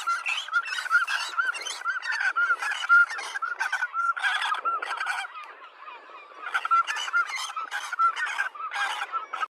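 A flock of birds calling over one another in many short, repeated calls, with a brief lull about six seconds in.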